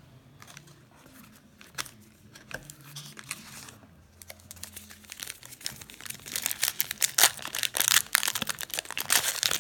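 A 2018 Allen & Ginter trading-card pack's foil wrapper crinkling as it is torn open, starting about halfway through and growing loud, dense crackling; before that only faint clicks and taps of cards being handled.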